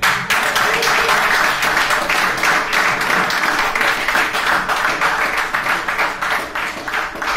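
An audience applauding, breaking out suddenly at the end of a stand-up comedy set.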